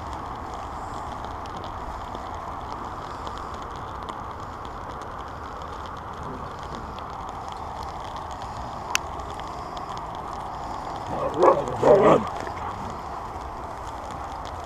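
A husky gives two short barks in quick succession during rough play, over a steady background hiss.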